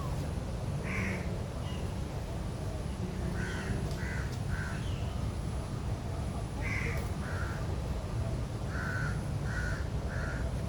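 A bird repeating short calls: one about a second in, then runs of two or three calls close together, over a steady low background rumble.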